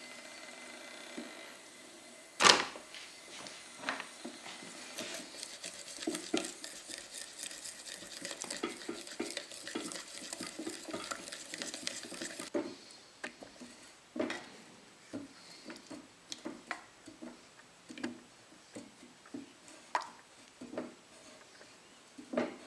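A spoon, then a wooden stick, clinking and scraping against a terracotta bowl as white powder is stirred into warm rabbit-skin glue, with one sharp clink about two and a half seconds in. A faint hiss stops about halfway through.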